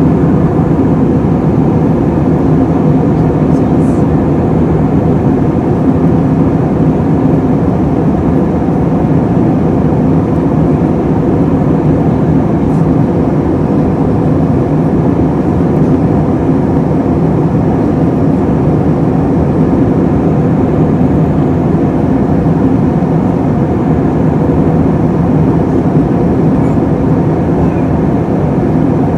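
Steady in-flight cabin drone of an Airbus A321-231 heard from a window seat: IAE V2500 engine hum and airflow noise, with a few faint steady tones in the drone.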